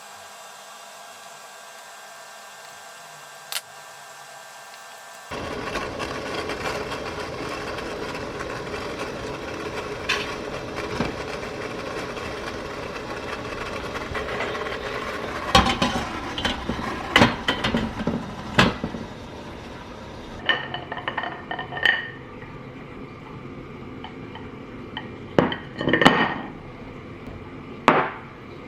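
Scattered sharp clicks and clinks over a steady background noise that gets louder about five seconds in and changes character again about twenty seconds in.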